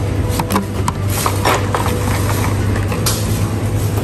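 Plastic blister packs of die-cast toy cars crinkling and clicking in the hand as they are handled and turned, a few short sharp crackles, over a steady low hum.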